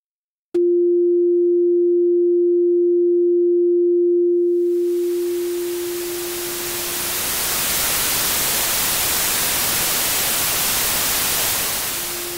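Synthesized low sine-wave tone that starts abruptly about half a second in and holds steady. It then cross-fades into white noise, a hiss that swells in over a few seconds as the tone fades away. Near the end the sine tone fades back in while the noise starts to fade out.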